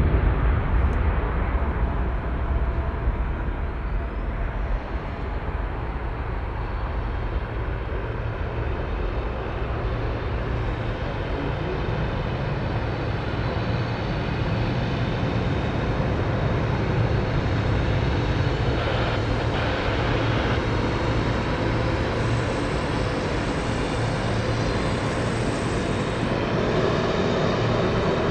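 Lockheed C-130H Hercules taxiing, its four Allison T56 turboprop engines and propellers running in a steady low drone.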